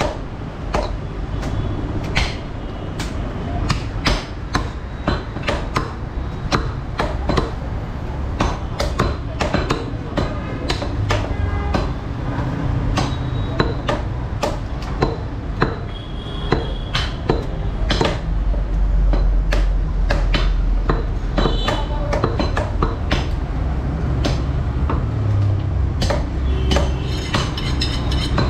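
Butcher's cleaver chopping beef on a round wooden log chopping block: repeated sharp chops at an irregular pace, about one to two a second, over a steady low background rumble.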